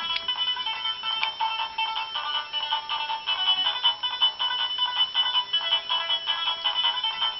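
Background music: a bright, high-pitched electronic tune of quick short notes, with no bass.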